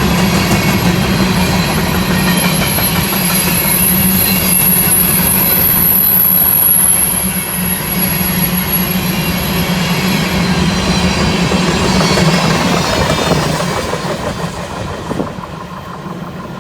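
Empty coal train rolling past: a steady rumble and clatter of wheels on the rails, with a thin high squeal over the first ten seconds. The sound dies down over the last few seconds.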